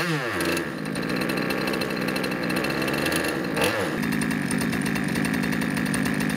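30cc two-stroke gasoline engine of a large RC boat running with the hatch open: a rev falls away at the start, there is one short throttle blip a little past the middle, then it settles to a steady idle.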